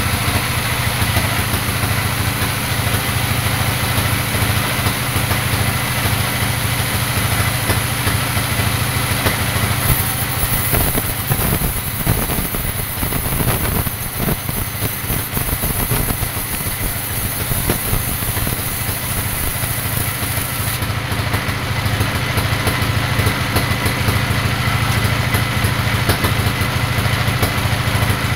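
Vertical band sawmill running steadily, its blade cutting through a teak log: a continuous low machine hum with a high hiss over it.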